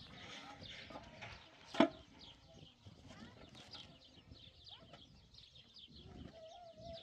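Hollow concrete blocks being handled and set down, with one sharp knock about two seconds in. Small birds chirp throughout, and a short wavering animal call comes near the end.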